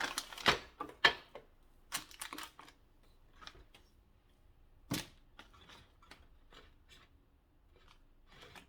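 Garlic powder container being shaken and handled over a bowl: a quick run of sharp clicks and taps in the first few seconds, then one louder knock about five seconds in, with faint ticks after.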